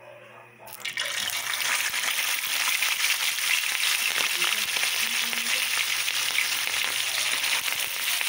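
Whole milkfish (bangus) going into hot cooking oil in a wok. A loud, steady sizzling starts suddenly about a second in as the fish begins to fry.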